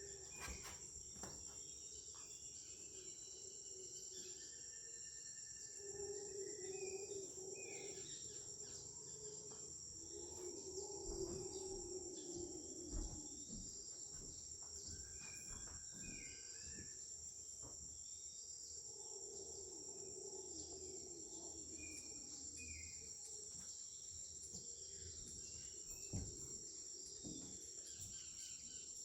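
Tropical forest ambience: a steady high-pitched insect drone throughout, with scattered short bird whistles and a few longer, lower calls that come and go.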